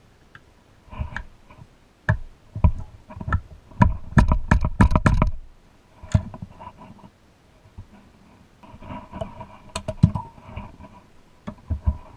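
Screwdriver and pressed-steel Tonka toy body parts clinking and knocking together during disassembly, with a light metallic ring. A quick run of taps comes about four seconds in, and another cluster about nine to ten seconds in.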